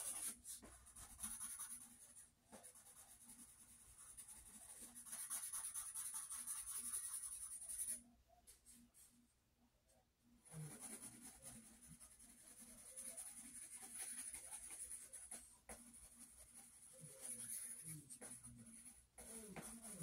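Pen scratching on sketchbook paper in runs of drawing strokes, faint, with a pause of about two seconds near the middle.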